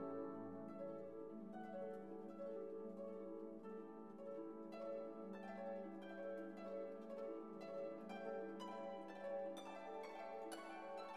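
Soft background music of gently plucked, harp-like string notes over held lower notes, the plucked notes coming more often in the second half.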